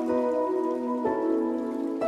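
Soft instrumental background music: sustained chords that change about once a second.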